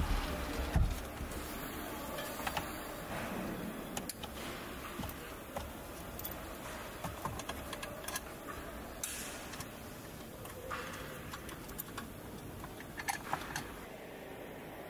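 Irregular plastic clicks and light knocks as a car's centre console is pushed and fitted into place by hand, over a steady factory background noise, with a low thump about a second in.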